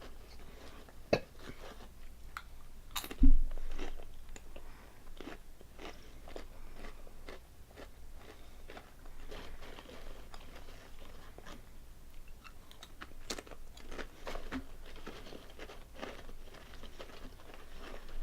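Close-up crunching and chewing of Calbee Honey Butter potato chips, many small crisp cracks in quick succession. There is one much louder thud about three seconds in.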